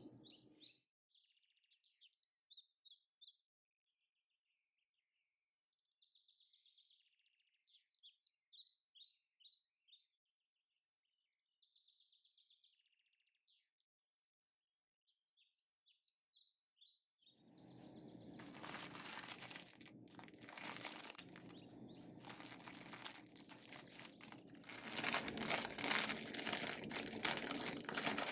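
Small birds chirping in short runs of quick high notes, with gaps of silence between them. About seventeen seconds in, a much louder crackling, rustling noise with sharp crinkles starts and builds: kitchen noise from a pot of water at the boil and a plastic noodle packet being handled.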